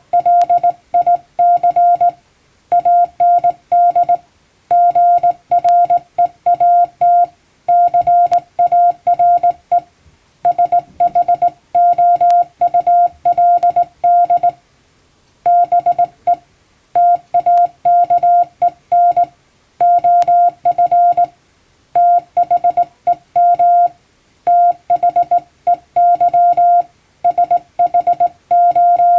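Hand-keyed Morse code (CW): a single steady tone switched on and off in dots and dashes, sent as English plain-language text, with short pauses between words.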